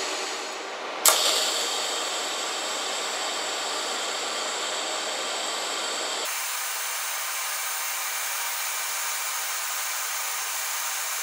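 TIG welding arc hissing steadily on steel exhaust tubing. The arc strikes with a sharp click about a second in, and the hiss turns abruptly thinner about six seconds in, where a different weld begins.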